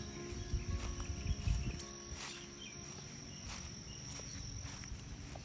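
Insects trilling steadily at a high pitch, fading near the end, with rustling and low knocks during the first two seconds.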